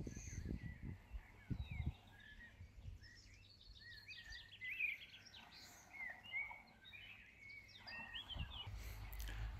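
Small birds chirping and singing faintly, many short high notes through the whole stretch, with a few low thumps in the first two seconds.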